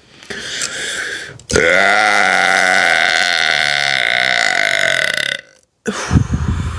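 A woman's long, drawn-out burp lasting about four seconds, starting about a second and a half in and cutting off suddenly. After a brief gap, a shorter, rougher sound follows near the end.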